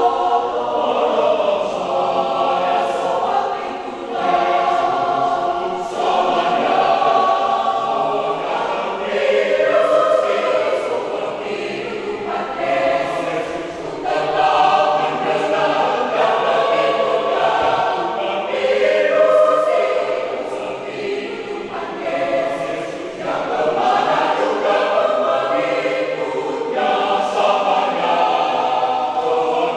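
Church choir of about 21 voices singing a hymn in several-part harmony, in sustained phrases.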